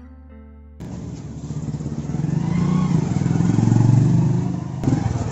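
Motorcycle engine coming in abruptly about a second in after a kick-start, then revving and growing louder as the bike pulls away, easing off near the end.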